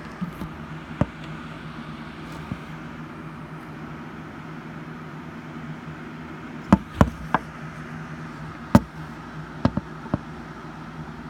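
Steady low electrical or fan-like hum with a handful of sharp clicks and knocks over it. The knocks are a cluster of three about seven seconds in, the loudest one near nine seconds, and two more soon after, typical of a phone being handled and moved while filming.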